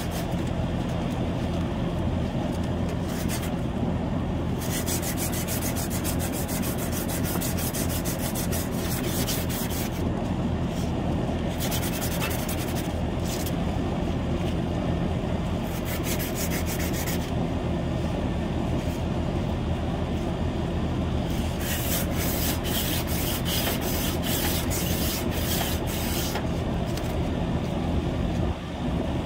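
Sand cloth rubbing back and forth on a copper refrigerant suction line in spells of rapid strokes, cleaning the copper bright before it is cut and brazed. Under it, a steady hum from the running air-conditioning condensing unit.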